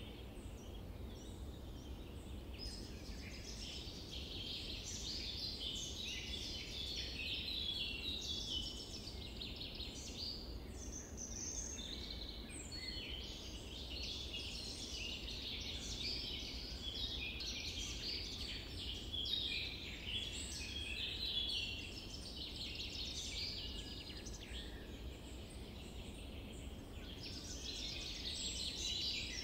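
A steady chorus of many small songbirds chirping and trilling, the calls overlapping continuously over a faint background hiss.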